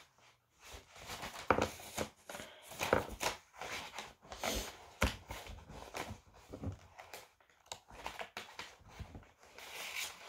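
Irregular rustling and clicking handling noises from a hand and sleeve moving close to the microphone, with a few sharper clicks.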